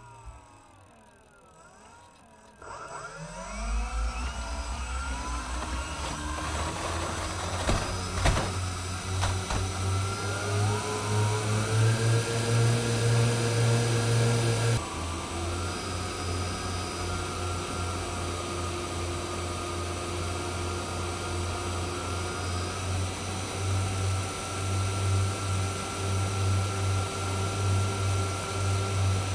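Motors and propellers of an RC Short Solent flying-boat model, heard from a camera on the model. Quiet at first, they spool up with rising whines about three seconds in for the takeoff run, then run at a steady whine in flight. The sound changes abruptly about halfway through.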